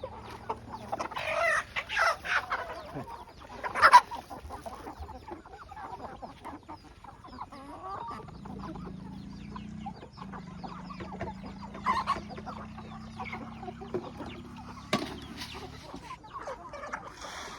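A flock of chickens clucking, with short calls here and there and the loudest about four seconds in, over a steady patter of small ticks.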